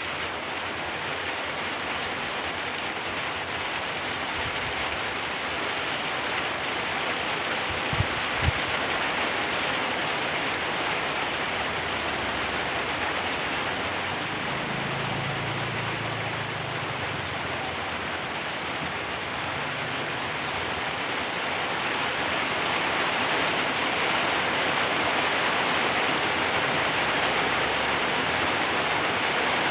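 Steady, even rain pouring down. Two brief low knocks come about eight seconds in, and a low rumble rises and fades near the middle.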